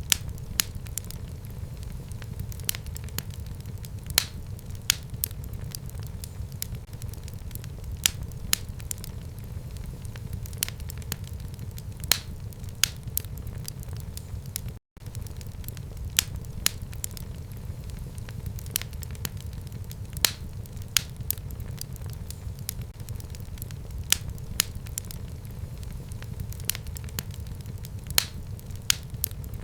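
Fire burning in a home fireplace: a steady low rumble of flame with sharp, irregular crackles and pops several times a second. About halfway through the sound cuts out for a split second.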